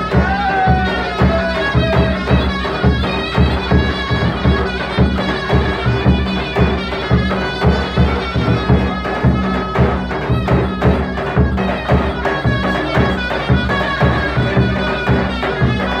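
Turkish folk dance music for the bar dance: a reedy wind-instrument melody over a steady drum beat.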